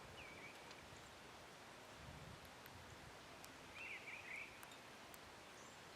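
Faint outdoor background hiss with a songbird calling: a short slurred note at the start and a brief warbled phrase about four seconds in.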